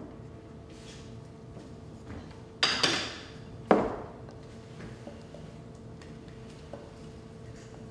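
A kitchen utensil knocking sharply against a small metal saucepan, two close knocks about two and a half seconds in and a third a second later, each ringing briefly, with faint scraping of the pan while chocolate glaze is stirred and poured.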